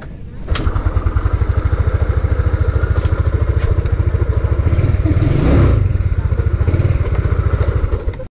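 Yamaha Mio Sporty scooter's small single-cylinder four-stroke engine catching about half a second in and idling with a fast, even putter, with a short rev about five seconds in.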